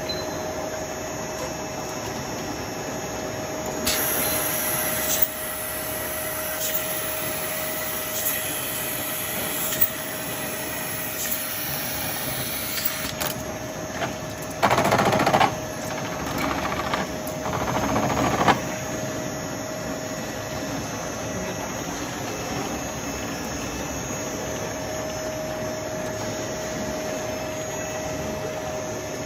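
Automatic screw-capping machine for oil bottles running, its motors giving a steady whine over a mechanical clatter, with clicks and knocks from about four seconds in and two louder noisy spells a little past halfway.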